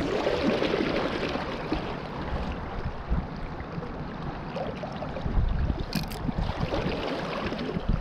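River current rushing and splashing steadily around the wader, with wind buffeting the microphone in uneven gusts.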